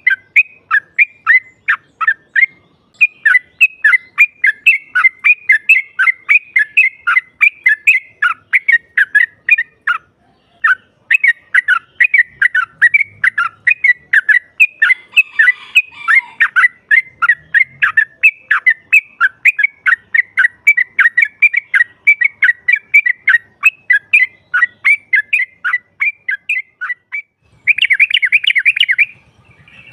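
Yellow-vented bulbul calling: a long, rapid run of short chirps, about four a second. There is a brief pause about ten seconds in, and a dense chattering burst near the end.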